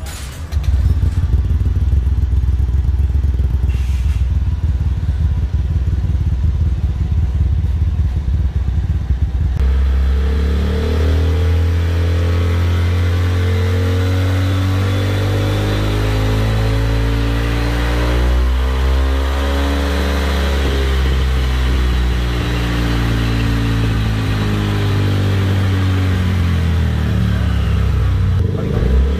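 Honda Vario scooter's single-cylinder four-stroke engine running through an aftermarket racing exhaust freshly repacked with glasswool. The note is deep and bassy rather than tinny. After a cut about ten seconds in, the engine is held at raised revs, its pitch swinging up and back down around the middle.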